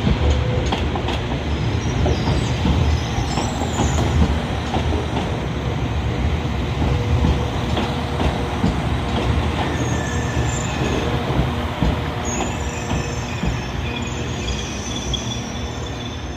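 A train running over the rails with a steady rumble and wheel clatter. High, wavering wheel squeals come in a few seconds in and again through the second half. The sound eases off slightly near the end.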